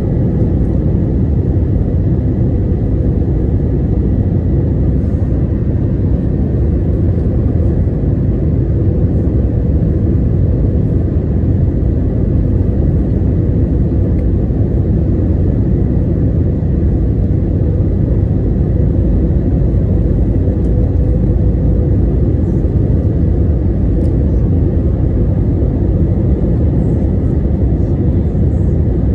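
Jet airliner cabin noise on descent: a steady, loud low rumble of the turbofan engines and airflow, with a faint steady whine above it.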